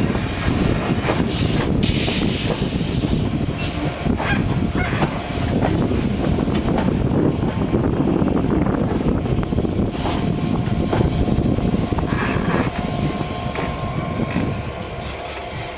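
A train running: a steady dense rumble with a few sharp knocks and faint, steady high-pitched tones above it.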